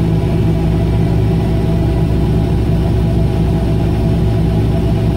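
Combine engine running steadily while its unloading auger empties shelled corn into a grain cart.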